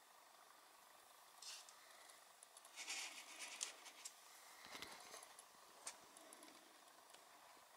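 Near silence with faint rustles and a few light clicks of a small plastic scale-model tank being handled by fingers and set on the tabletop.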